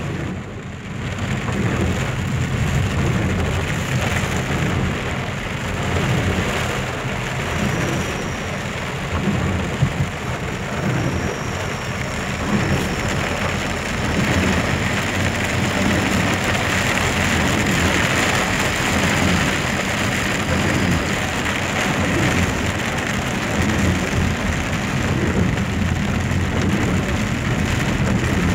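Heavy rain pouring down, a dense steady hiss of water falling, over a continuous low rumble, with a couple of sharper knocks about ten and twelve seconds in.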